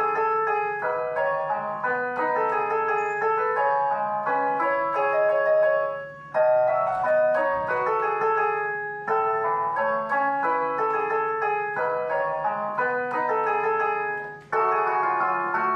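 Digital piano playing a melody over chords in a piano voice. The sound falls away briefly about six seconds in and again near the end, where one phrase ends and the next begins.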